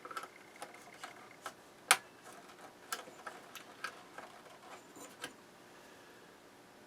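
Irregular small sharp clicks and taps of a stuck fuse being worked in its holder inside a stereo receiver's chassis. One click about two seconds in is much louder than the rest, and they stop a little past five seconds.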